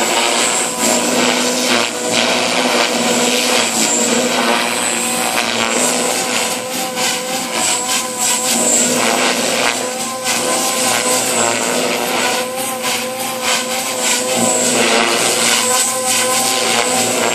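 JR Forza 450 electric RC helicopter in flight in idle-up 2 mode, its 3,500 kV brushless motor and rotor head making a steady high whine and buzz that wavers slightly in pitch as it manoeuvres.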